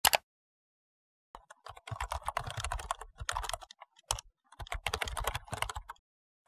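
Keyboard typing: a single click, a short silence, then two quick runs of key clicks about two seconds each with a brief pause between.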